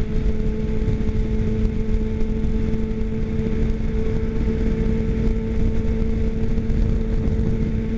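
Motorcycle engine running at a steady pitch while cruising at freeway speed in sixth gear, under a heavy rush of wind on the microphone.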